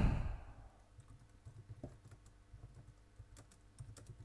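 Faint computer keyboard key clicks, irregular and scattered. They follow the fading tail of a loud burst of noise in the first half second.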